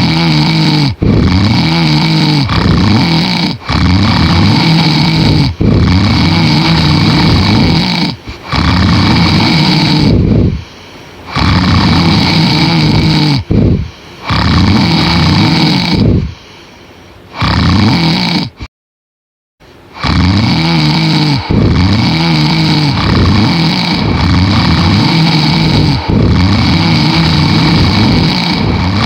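Loud snoring from a sleeping man. It comes in stretches that break off abruptly every few seconds, with one brief silent gap about two-thirds of the way through.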